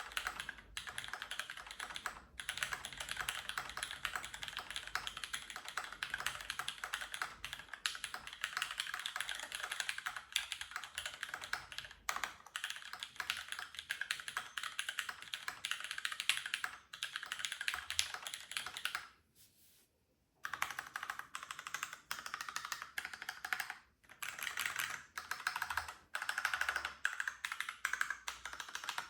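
Fast, continuous typing on an Alisea mechanical keyboard with Cherry MX Brown tactile switches, an aluminium plate and GMK keycaps: a dense clatter of keystrokes. It stops for about a second roughly two-thirds of the way through, then resumes with another brief gap.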